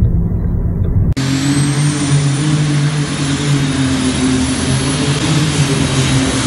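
Car interior road noise for about a second, then a sudden cut to a modified pulling tractor's engine running loud and steady at full power as it drags a weight sled down an indoor pulling track.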